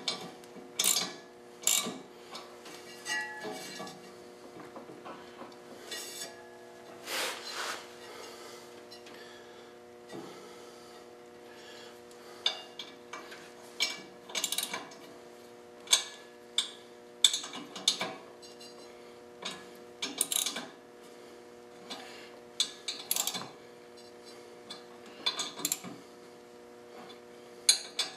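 A 3/8-inch ratchet with a 7/16 socket clicking in short, irregular runs with metal clinks as the bolts of a taper bushing are drawn in by turns, a quarter turn each. A steady hum runs underneath.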